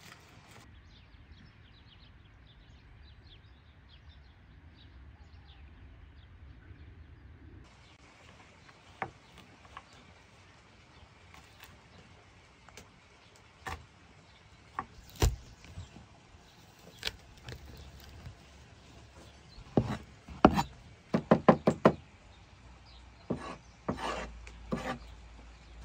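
Scattered single knocks and taps, then a quick run of about half a dozen sharp strikes some twenty seconds in, with a few more just after.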